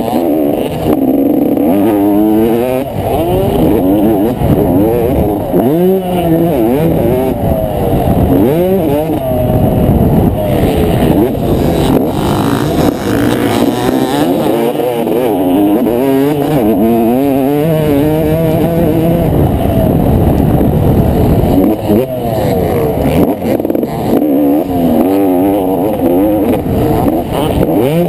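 Yamaha motocross bike's engine heard on board while racing, its pitch rising and falling over and over as the throttle is opened and closed through corners and gear changes.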